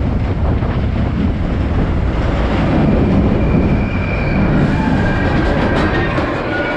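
Steady, loud rumble and rattle of a moving vehicle, like a ride vehicle travelling along its track.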